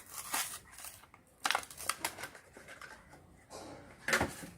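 Hot Wheels blister pack being opened: card and plastic packaging being cut, scraped and torn, in irregular short rips, with louder ones about a second and a half in and just after four seconds.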